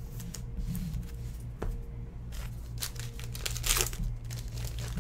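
Foil wrapper of a trading-card pack crinkling and rustling as it is handled and torn open, with a louder burst of crackling near the four-second mark.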